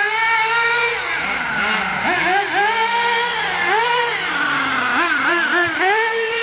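Radio-controlled car's motor whining as it is driven, its pitch rising and falling over and over with the throttle.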